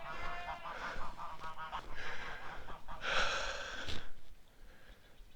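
Domestic geese honking, a few hoarse calls in the first four seconds, then quieter.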